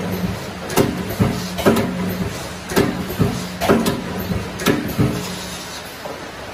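Automatic row-type wire mesh welding machine at work, its welding head striking the wires with a sharp clack about once a second over a steady hum; the hum stops shortly before the end.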